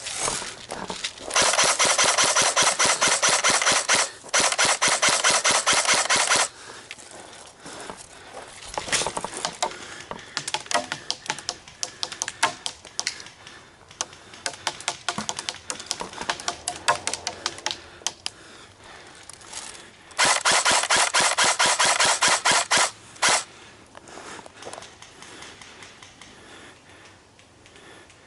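Game gun firing on rapid fire: a long burst starting about a second in with a short break in the middle, scattered single shots and short strings, then another burst of about three seconds near the end.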